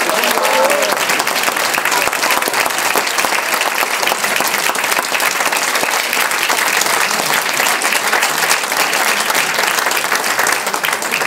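Audience of several dozen people applauding, a steady, dense clapping that holds at the same level throughout.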